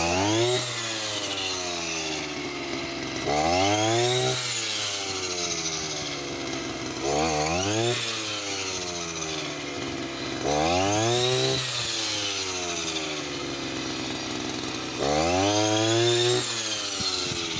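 Petrol brush cutter cutting green maize fodder: the engine revs up in five surges, about one every three to four seconds, as the blade swings through the stalks, and its pitch falls back between them.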